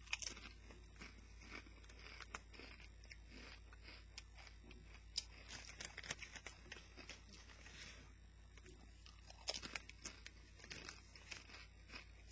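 Faint crunching and chewing of Doritos tortilla chips in the mouth, with louder clusters of crunches about a second in, around five to seven seconds and near ten seconds, over a steady low hum.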